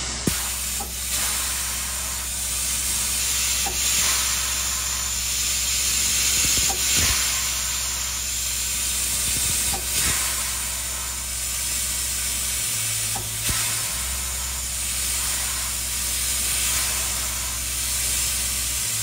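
Compressed air hissing steadily through SP 786's power reverse unit as it is exercised on air instead of steam, over a low steady hum. A sharp knock comes just after the start, with a few fainter knocks later.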